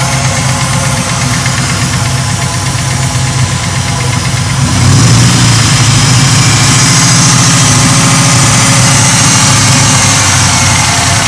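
Swapped Lincoln Mark VIII 4.6-litre DOHC V8 running with a tick, which the owner takes for lifter tick rather than a blown engine. It gets louder about five seconds in.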